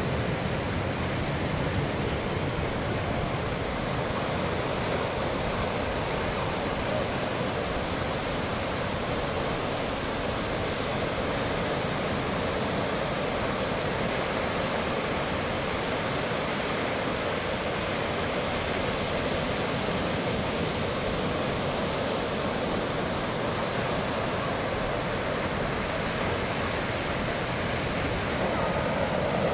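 Distant jet roar of a six-ship formation of F-16 fighters, heard as a steady, even rushing noise.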